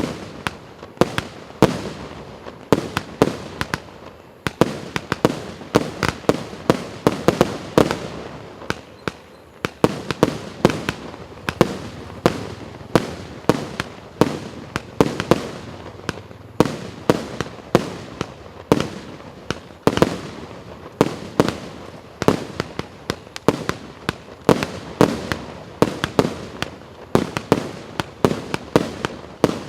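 A 150-shot, 1-inch-calibre fireworks cake firing its shots in a steady rapid series, about two to three sharp bangs a second without a break.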